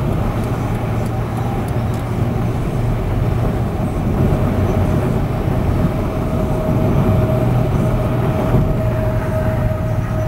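Steady low rumble of a moving vehicle heard from inside, with a thin steady whine joining about four seconds in.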